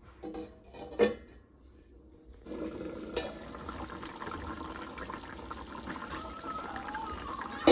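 Water running or being poured in a steady rush that starts suddenly about two and a half seconds in, after a single knock; a sharp clatter at the end is the loudest sound.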